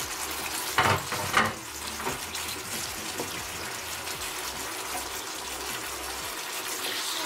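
Chicken and vegetables in a thin sauce simmering in a frying pan, a steady bubbling hiss, while a wooden spatula stirs through them. Two sharp knocks about a second in stand out above the simmer.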